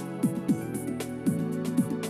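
Background music with a steady beat: evenly spaced percussive hits about four times a second over held notes, with short falling low notes.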